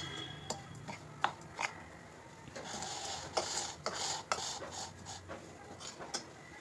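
A metal spoon stirring and scraping through dry, coarsely ground spice powder in a ceramic bowl: a soft rasping scrape in the middle, with several light clicks of the spoon against the bowl.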